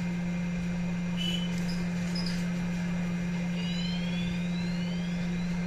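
A steady low hum runs throughout, with a few faint short high tones and faint rising whistles over it.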